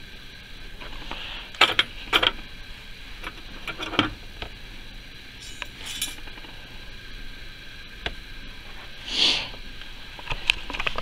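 A few sharp, separate clicks and metallic clinks from a toy claw-machine cabinet being handled, with a short rushing swish about nine seconds in.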